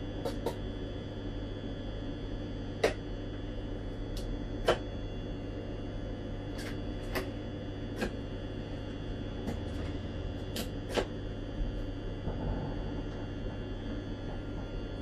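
Steady hum in the driver's cab of a Regio 2n (Z 57000) electric multiple unit, with about a dozen sharp clicks scattered irregularly through it. The two loudest clicks come about three and five seconds in.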